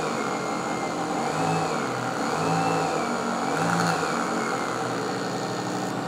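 Motor-generator test rig running: a DC drive motor on a speed controller spins a 220 V hand-blender motor used as a generator, powering a light-bulb load. Steady motor running sound with a whine that wavers gently up and down in pitch.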